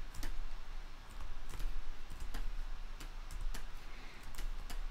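Irregular sharp clicks of a computer mouse, roughly two a second, made while sculpting and turning the view in Blender, over a faint steady low hum.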